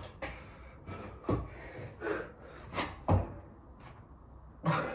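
Bodyweight burpees with push-ups: several dull thuds of feet and hands landing on a floor mat, mixed with sharp, heavy breaths of exertion.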